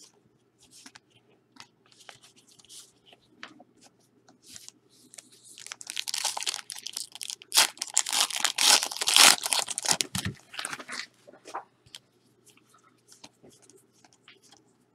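Trading card packaging being torn open and crinkled by hand. A dense crackling rustle runs from about five and a half seconds in to about eleven, loudest in its second half, with light handling rustles and clicks before and after.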